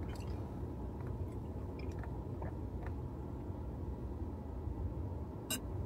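A man drinking from a plastic bottle of red Kool-Aid: faint mouth and swallowing sounds and small clicks over a steady low car-cabin hum, with one sharper click near the end.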